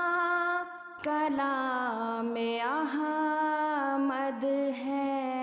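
A voice sings an Urdu naat, holding long drawn-out notes that bend and glide between syllables, with a short breath about a second in.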